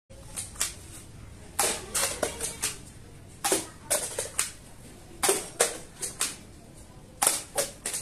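Toy soft-bullet dart pistol firing, each shot a sharp click, with plastic cups being hit and clattering onto the tiled ground. The clicks come in quick clusters of three to five, about every two seconds.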